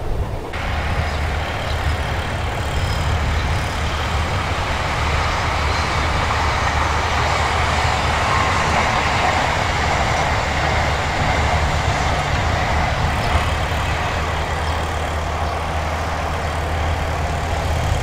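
Odakyu Romancecar electric express train running past over a level crossing: a continuous rumble of wheels on the rails over a low hum, swelling to its loudest about halfway through.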